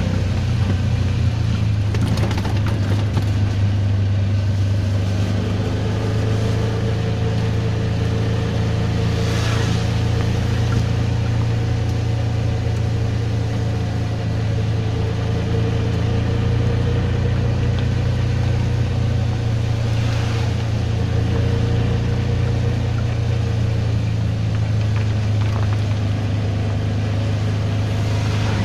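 Auto-rickshaw engine running steadily at cruising speed, heard from inside the open cabin as a constant low drone. Two brief rushing sounds stand out about ten and twenty seconds in.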